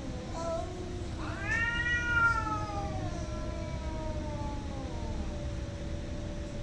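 Cat yowling in a standoff with another cat: a low, drawn-out moan runs on, and about a second in a louder, higher wail rises sharply and then slowly sinks over about four seconds. It is the threat yowl of two cats squaring off before a fight.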